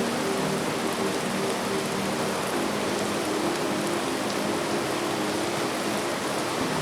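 Steady, heavy rain falling, an even constant hiss, with soft low sustained musical notes faintly beneath it.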